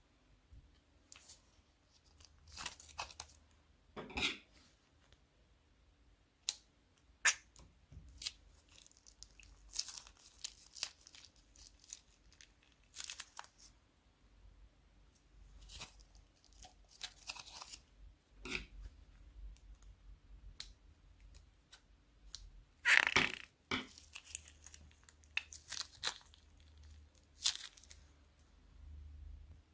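Slime and plastic bags being handled: scattered crackles, crinkles and short tearing sounds at irregular intervals, with a louder burst about two-thirds of the way through.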